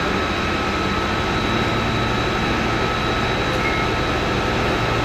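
A heavy engine running steadily: a constant rumble with a thin high whine held over it.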